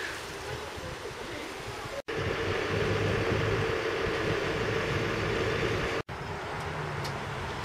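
Steady outdoor vehicle hum with wind noise. For about four seconds in the middle it is louder, with a steady engine tone and a low drone. The sound breaks off for an instant twice, about two and six seconds in.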